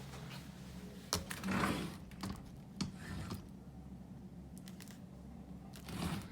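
A few faint clicks and knocks with short rustles of things being handled while someone hunts for a pair of scissors, then a quieter stretch before more rustling near the end.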